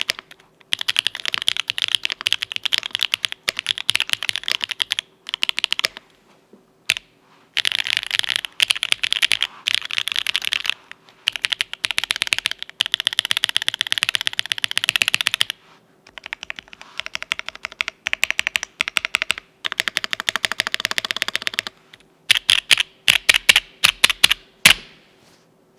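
Mechanical keyboard with lubed Owlab Tungsten linear switches, GMK keycaps and an aluminium plate being typed on: fast runs of keystrokes in bursts of a few seconds with short pauses between them. Near the end come about a dozen separate, louder single key strokes.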